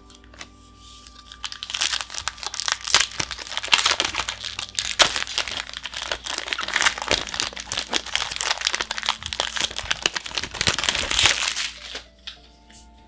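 Foil booster pack wrapper crinkling and tearing as it is opened by hand, a dense run of crackles that starts a second or so in and stops shortly before the end.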